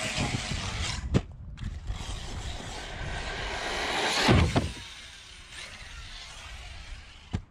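Electric RC basher truck driving fast: steady motor and tyre noise that builds to a loud rush as it charges past close about four seconds in. There is a sharp knock about a second in.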